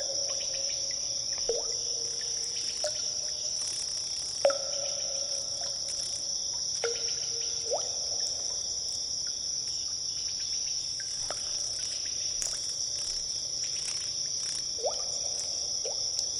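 Cave water drips: single drops falling into a pool every second or two at irregular intervals, each a short ringing plink that glides in pitch. Under them runs a steady high-pitched, insect-like hiss.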